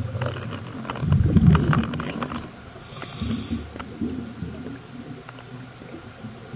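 Muffled underwater noise picked up by a submerged camera: low, uneven rumbling with scattered clicks, loudest about a second in, with a brief hiss around three seconds in.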